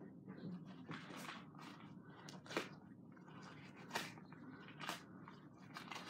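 Firework mortar shells being handled and set down by hand: a faint rustle broken by a handful of sharp clicks, roughly one a second.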